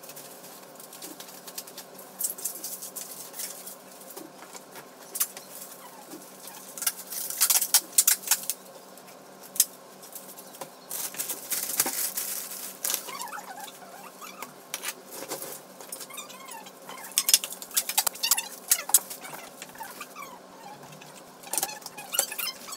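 Plastic bags and packing materials rustling and crinkling as belongings are handled and packed, in irregular bursts of crackles and clicks.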